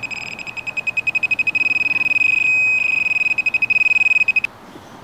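Handheld metal-detector pinpointer sounding its alarm tone: rapid high beeps that run together into a continuous tone, then break back into fast beeps and stop about four and a half seconds in. The fast, near-continuous alert is the sign of a strong metal signal from the metallic vein in the sliced rock, taken for nickel and mixed metal.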